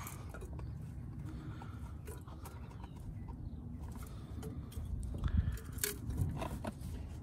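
Faint clicks and knocks of metal and plastic parts being handled as a thermostat and its housing are fitted back onto the engine, with a few louder thumps about five to six seconds in, over a low steady rumble.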